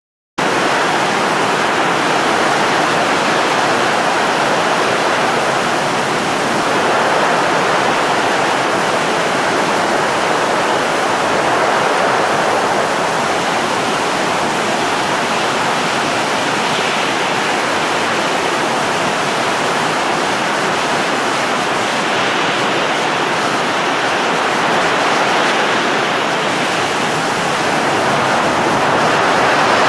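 Steady rushing blowing sound effect, like strong wind, that starts abruptly and swells gently every few seconds.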